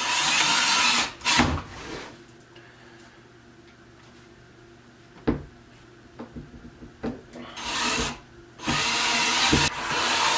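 Power drill driving fasteners into plastic-fitted holes in a furniture panel, in several runs: about a second at the start, a short burst, then longer runs near the end. A single sharp knock about halfway through.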